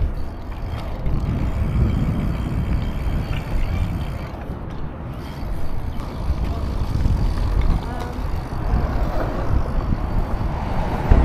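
Uneven wind and tyre rumble as a Redline BMX bike is ridden, heard through a chest-mounted camera's microphone.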